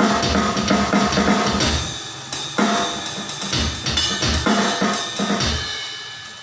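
Drum kit played in a sound check: kick drum and snare hits with cymbals. The playing stops near the end and the cymbals ring out and fade.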